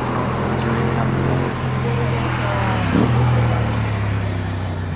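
A vehicle's steady low mechanical hum, swelling slightly about three seconds in.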